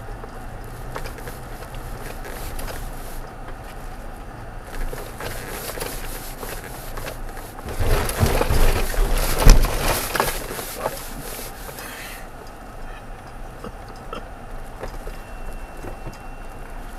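In-cab sound of a Toyota Tacoma pickup rolling slowly over a dirt road: a steady low rumble, broken about halfway through by a few seconds of crackling, knocks and rattles as the truck goes over rough ground, with one sharp knock the loudest.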